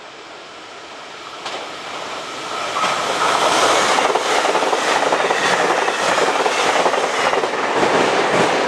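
Train running on the rails, its wheels clacking over rail joints with a steady rolling hiss. It grows louder over the first three seconds.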